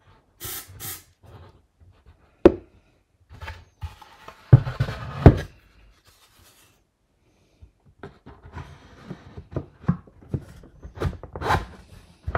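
Two short hisses of an aerosol CA-glue accelerator spray, then a sharp knock and heavier thumps as the rocket body tube is set down on end. After a quiet spell come rubbing and light knocks of a plywood fin being worked into the fin slot.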